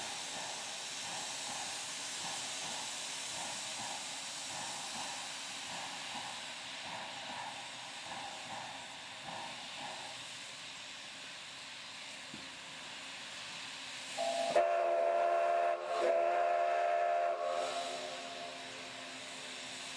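K-36 narrow-gauge steam locomotive standing with steam hissing and a faint pulsing about twice a second. About three-quarters of the way through, its whistle sounds two loud blasts.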